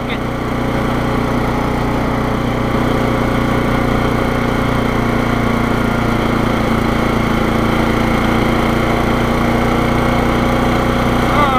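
Murray riding lawn mower's engine running steadily at speed as the mower drives along, one even drone that holds its pitch.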